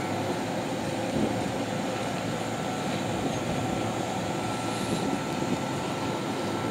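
Stopped Oigawa Railway 16000 series electric train (ex-Kintetsu) idling at the platform: the steady hum and whir of its auxiliary equipment and rooftop air-conditioning units, with a faint steady whine.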